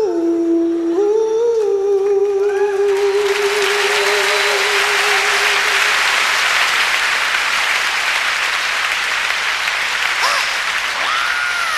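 A man's voice holds one long sung note with vibrato, dying away about six seconds in, while loud audience applause breaks out about three seconds in and carries on.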